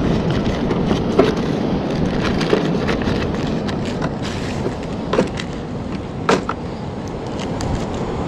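Steady wind blowing over the microphone with surf below, and scattered light knocks and clicks. The sharpest knocks come about five and six seconds in.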